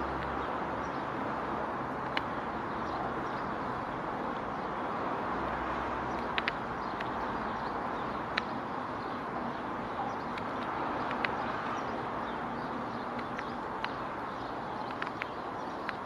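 Great spotted woodpecker pecking at a cobnut wedged in tree bark: sharp single taps every second or two at uneven spacing, some in quick pairs. They sound over a steady hiss of outdoor background noise.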